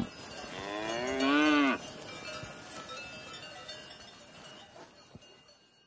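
Cow mooing once, a single call of about a second and a half that rises and then falls in pitch, followed by the faint ringing of the cowbell on its collar.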